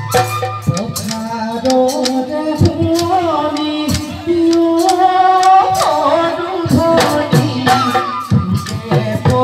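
Assamese Bihu folk song: a sung melody over a quick, steady drumbeat.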